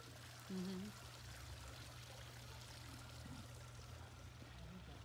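Faint, steady outdoor rushing noise over a low hum, with a short hummed voice sound about half a second in.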